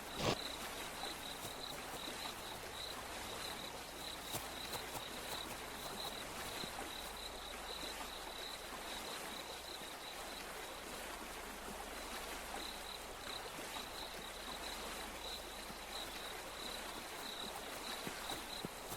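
An insect chirping in a fast, even, high-pitched pulse that keeps on throughout, over a steady background hiss. There is a brief bump at the very start.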